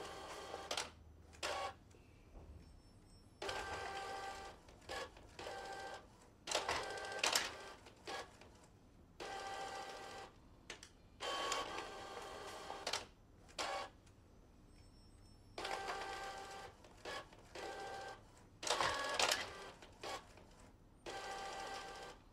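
Epson L4260 inkjet printer running a double-sided print job. The print-head carriage and paper-feed motors whir in repeated bursts of about a second, each with a steady whine, separated by short pauses as the sheet is printed and fed through the duplex path.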